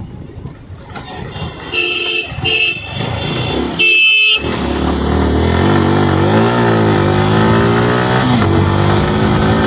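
A horn toots twice briefly, then gives a longer, louder blast about four seconds in. After it, the Yamaha R15M's 155 cc single-cylinder engine pulls away, its pitch climbing, dipping and climbing again as it gathers speed.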